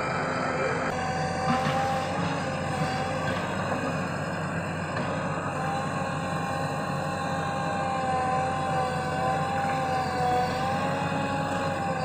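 JCB 3DX backhoe loader's diesel engine running steadily while the machine works, with a steady whine over it that wavers slightly in pitch.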